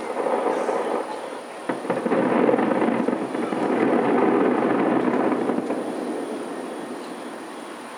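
Distant fireworks booms rolling together into a continuous rumble, with a few sharp cracks a little under two seconds in. The rumble swells in the middle and then fades.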